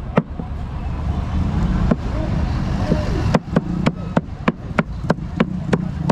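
Cleaver chopping a charcoal-roasted whole chicken on a wooden chopping block: a single chop, another about two seconds in, then a quick run of about ten chops, roughly three a second, over steady traffic noise.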